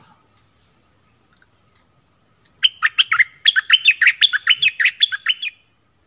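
A bulbul (merbah lekir) singing a quick run of loud slurred notes, lasting about three seconds and starting a little over two seconds in.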